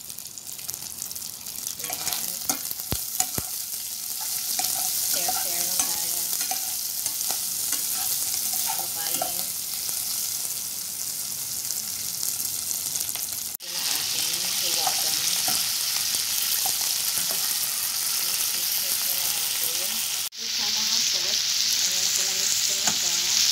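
Pork, garlic and peanuts sizzling in hot oil in a frying pan while being stirred, with scattered clicks. The sound breaks off sharply twice. In the last few seconds there is a louder, denser sizzle as green beans stir-fry with the pork.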